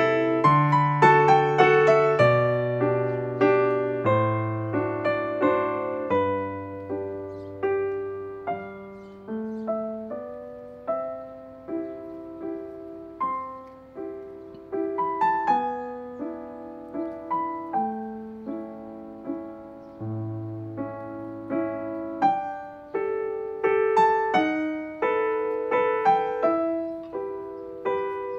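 Background piano music: a slow piece of single notes and chords, each struck and left to ring and fade.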